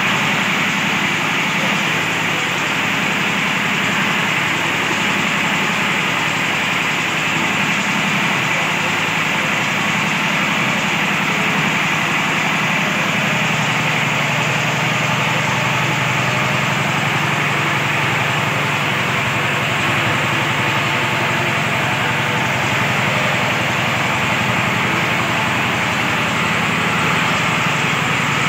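Diesel engine of an R75 well-drilling rig running steadily, driving the rig's gearbox and drill pipe as the bit bores into the soil.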